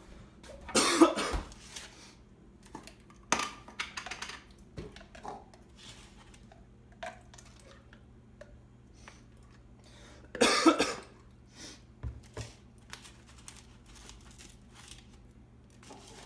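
A person coughing hard twice, once about a second in and again about ten seconds in, between small clicks and knocks of kitchen handling.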